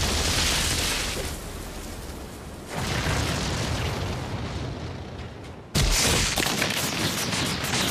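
Anime sound effects of a huge energy blast: a rumbling boom with hissing noise that dies down, swells again about three seconds in, then a sudden loud crash of a second blast just before six seconds in.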